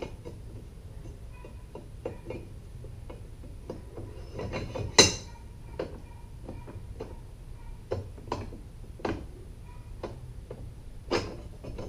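Metal Minn Kota Talon jack plate adapter bracket pieces clicking and knocking against each other and the jack plate as they are handled and test-fitted: a scatter of small clicks, with one louder clank about five seconds in and another near the end.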